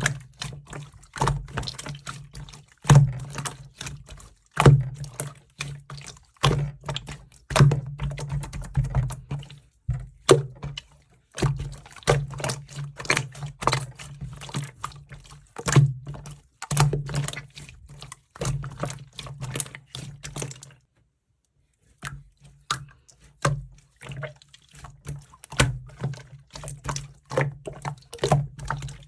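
Slime being squished, stretched and poked by hand, making dense runs of wet clicks and pops, with a steady low hum underneath. Everything cuts out for about a second roughly two-thirds of the way through.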